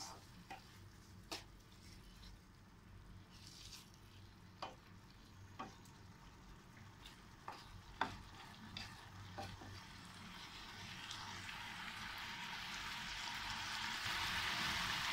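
Wooden spatula stirring grated carrot in a nonstick frying pan, with scattered light scrapes and taps. From about ten seconds in, a sizzling hiss rises steadily as the sweetened carrot-and-milk mixture comes to a bubble: the sugar has let out water that is now cooking off.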